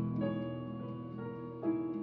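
Keyboard playing slow, sustained notes in improvised music. The notes ring on and fade, and new notes are struck just after the start and again near the end.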